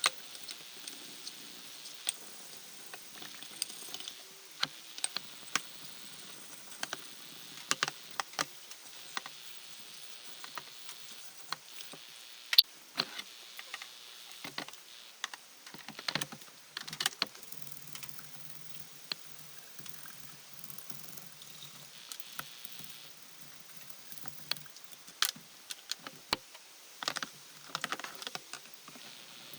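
Irregular light clicks and clinks, some in quick clusters, of hand tools and small parts being handled, over a faint steady hiss.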